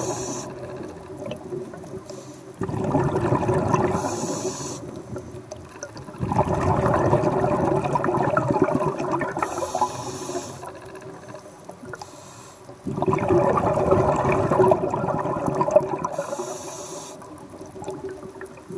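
A scuba diver's regulator underwater: three long bursts of rumbling exhaled bubbles, starting sharply about two and a half, six and thirteen seconds in, with quieter stretches and short high hisses of breathing between them.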